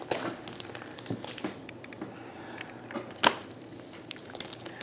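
Fluffy shaving-cream slime with plastic beads worked by hand, giving soft crackles and small clicks, with one sharper click about three seconds in.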